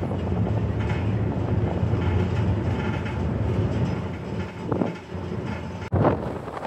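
Steady low rumble of a car ferry under way, fading after about four seconds, with a sudden sharp knock near the end.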